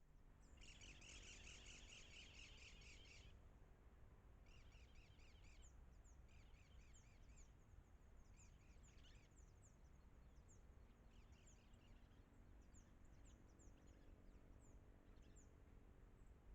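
Faint wild bird calls: a rapid high trill for about three seconds, then several shorter trilled phrases, with short high chirps scattered throughout.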